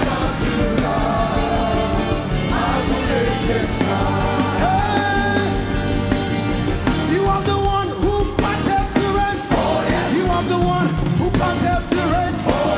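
Live gospel worship music: a band playing with voices singing and calling out over it.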